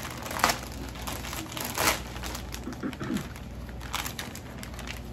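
Packaging crinkling and rustling as it is handled and opened, with two sharper, louder crackles about half a second and two seconds in.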